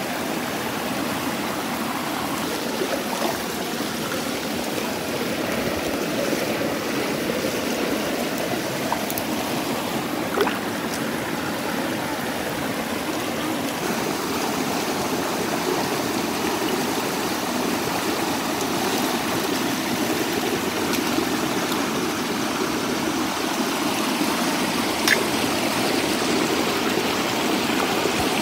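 Shallow rocky stream running over a small cascade: a steady rush of water, with a couple of light clicks.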